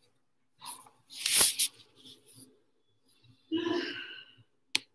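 Phone handling noise: a sharp click, a loud short rushing noise against the microphone about a second in, a short low vocal sound just before the end, and a second sharp click near the end.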